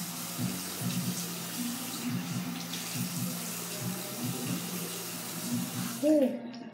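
Bathroom sink tap running, water splashing into the basin, shut off abruptly about six seconds in. A short voiced sound follows the shut-off, and background music plays underneath.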